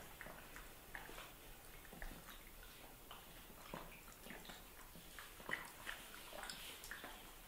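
Puppy sucking and lapping at a baby bottle's nipple: faint, irregular wet smacking clicks.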